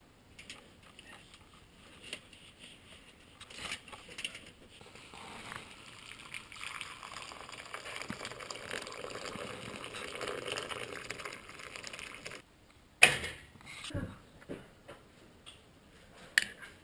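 Water poured from an electric kettle into a bowl: a steady splashing pour lasting several seconds. It stops, and a sharp knock follows, the loudest sound here, then a few lighter knocks.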